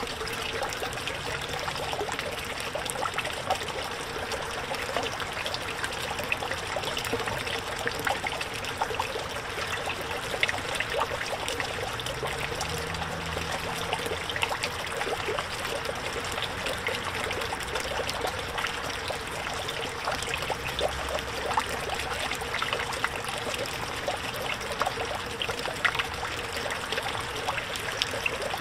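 Small backyard pond fountain: water from a submersible pump's spray head falling back onto the pond surface in a steady trickle and splash, with many small droplet plinks.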